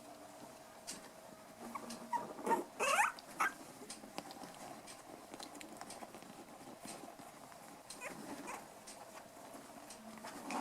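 Five-week-old toy poodle puppies squealing and yipping at play: a quick run of high, rising and falling squeaks about two and a half seconds in, and fainter ones near eight seconds, with light ticks in between.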